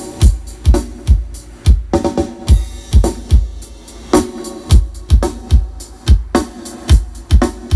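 A drum kit played loud through a stack of large loudspeaker cabinets as a sound-system check. Heavy bass-drum kicks come about twice a second, with snare and cymbal hits.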